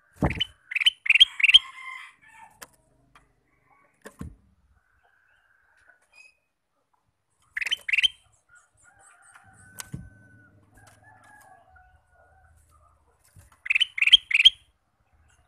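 Male ruby-throated bulbul (kutilang emas) singing: three short phrases of three or four quick rising notes, one near the start, one about eight seconds in and one near the end, with faint softer notes between. A few soft low thumps come in the gaps.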